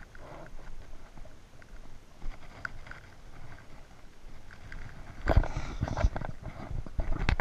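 Handling noise from a phone camera being moved around: faint rustling at first, then from about five seconds in a run of loud knocks and scraping.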